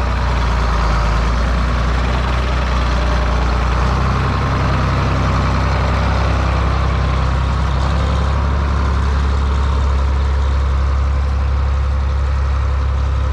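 John Deere 4020 tractor engine running steadily, picking up speed a little about four seconds in.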